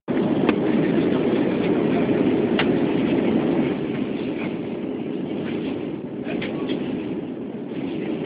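Steady cabin roar of an Airbus airliner in flight: engine and airflow noise heard inside the cabin during the climb-out after takeoff, with a few faint clicks.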